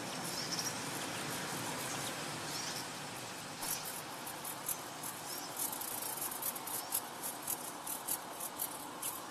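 Opening of an electronic music track: a steady hiss-like noise texture, with quiet high clicks coming in about three and a half seconds in and settling to about three a second.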